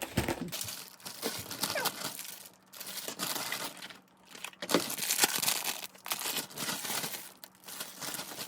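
Packaging crinkling and rustling in irregular bursts as meal-kit ingredients are handled and opened.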